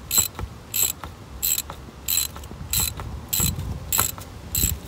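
Socket ratchet on a 5/8 socket clicking in short, even strokes, about eight of them roughly two-thirds of a second apart, as it backs out the oil-pan drain plug of a 2003 Harley-Davidson Road King; the plug is coming loose.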